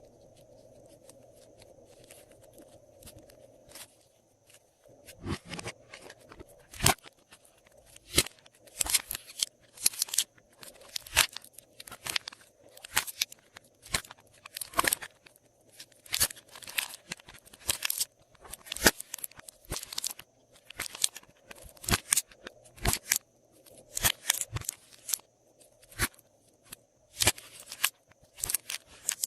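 Glossy slime being kneaded and pressed by hand, giving sharp crackling clicks and pops, one to a few a second, that start about five seconds in after a faint steady hum.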